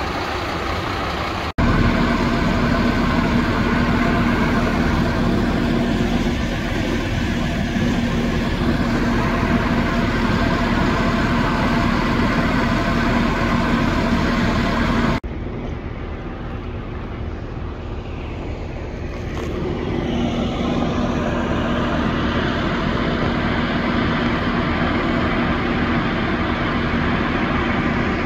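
Scania fire pumper trucks' diesel engines running at a steady speed as they drive the fire pumps feeding the hoses: a constant, even drone. The sound breaks off sharply twice.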